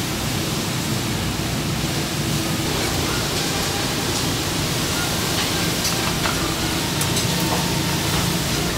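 Steady loud rushing noise of a commercial kitchen, with a few light metal clicks from tongs handling fried shrimp in the second half.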